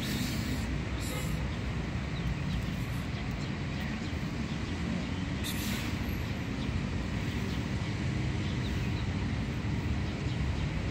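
Steady low rumble of road traffic, with a short hiss about five and a half seconds in.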